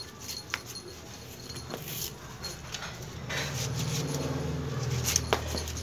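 Puppy playing with a rubber slide sandal on a concrete floor: a few sharp taps and scuffs as the slipper knocks against the floor, the loudest near the end. A low hum rises in the second half.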